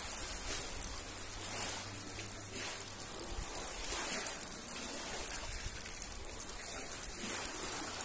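Light rain pattering in many small ticks over a steady hiss, with small sea waves washing onto a pebble shore in swells every second or two.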